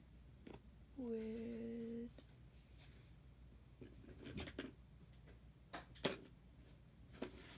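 A person hums one steady note for about a second, then art supplies are picked up and put down in a series of light clicks and knocks, the sharpest about six seconds in.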